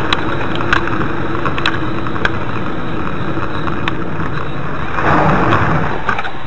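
Car engine running with steady cabin noise and a low hum, a few faint clicks, and a brief louder rush about five seconds in.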